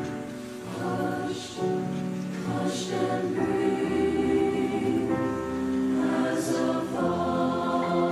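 High school mixed choir singing sustained chords in harmony, with grand piano accompaniment; sharp 's' consonants cut through a few times.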